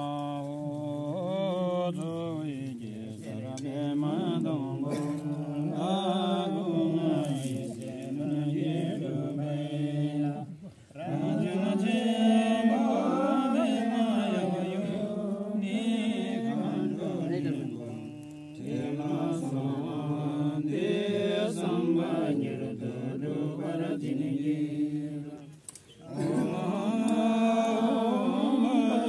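Voices chanting a Buddhist prayer in a low, steady drone of long phrases, with a short break for breath about every eight seconds.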